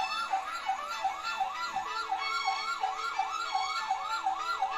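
Electronic siren in a fast yelp, its pitch sweeping up and down about three times a second.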